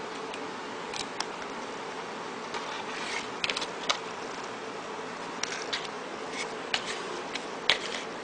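A small plastic spoon scraping and clicking against a plastic candy tray while mixing DIY candy, in scattered sharp ticks, a cluster about three and a half seconds in and the loudest near the end. A steady hum runs underneath.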